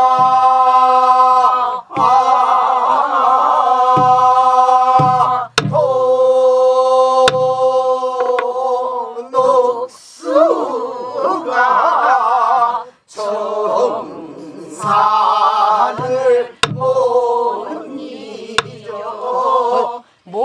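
A group of men and women singing a Namdo folk song together in long held notes with heavy wavering vibrato, phrase after phrase with short breaths between. A buk barrel drum accompanies with low thumps and a few sharp clicks of the drumstick.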